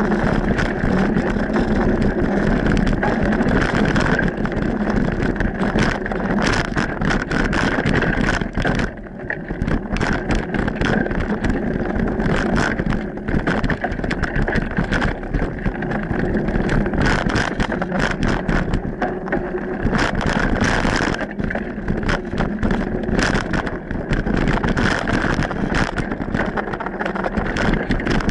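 Mountain bike riding over a dirt singletrack trail, picked up by a camera mounted on the bike or rider: continuous rattling and clatter of the bike and camera mount over bumps, with tyre noise on the dirt. The rattling eases briefly about nine seconds in.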